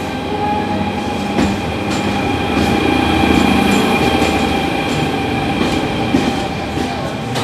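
SNCF BB 15000-class electric locomotive (BB 15052) and its Corail coaches rolling slowly into the platform, with a steady high whine and scattered clicks from the wheels over the rail joints.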